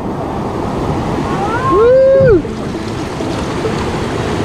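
River rapids rushing steadily during white-water rafting. About two seconds in, a person's voice calls out once, rising and then falling.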